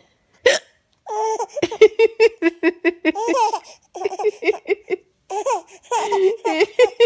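A woman's single sharp hiccup about half a second in. Then a baby laughs in high-pitched bursts of rapid, pulsing giggles, with short breaks between the bursts.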